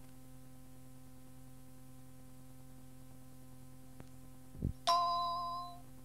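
Cassette playback hiss with a steady low mains hum, then near the end a brief low downward swoop and an electronic chime of several bell-like tones that rings for about a second and fades. This is the cueing chime that marks the start of the next announcement on an answering-machine announcement tape.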